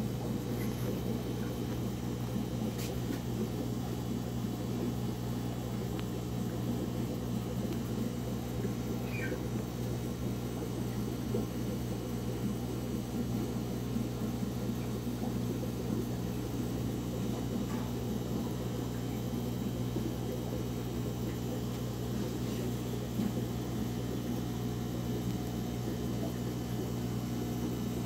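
Steady electric hum of an aquarium air pump, even and unchanging, with the low fizz of bubbles rising from an air-stone curtain in the tank.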